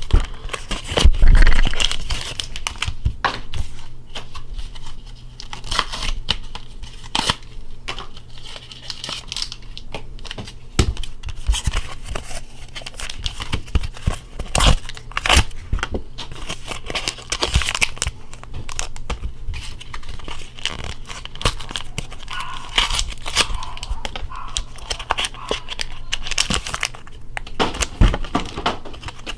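Pokémon card booster packs being torn open and their foil wrappers crinkled: an irregular run of tearing, rustling and crackling.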